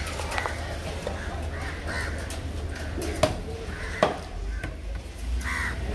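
Crows cawing again and again, with two sharp knife chops on a wooden cutting block a little past the middle as tuna is cut up.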